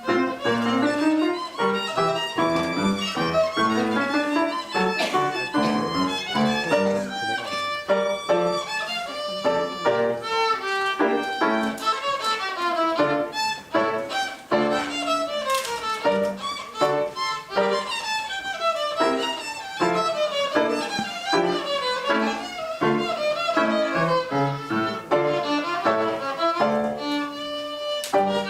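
Violins playing the first movement of a concerto for two violins: a busy, unbroken run of quick bowed notes.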